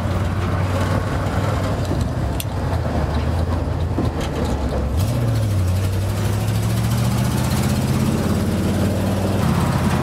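Car engine and road noise heard from inside the cabin while driving on a freeway. The engine note is steady at first, then rises steadily from about halfway in as the car accelerates.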